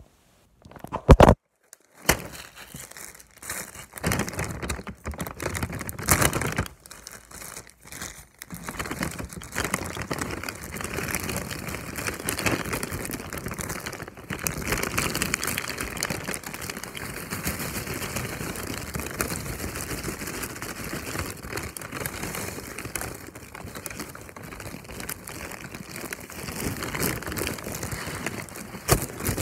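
A plastic bag of almonds crinkling and rustling as it is handled right against the phone's microphone, with a sharp knock about a second in.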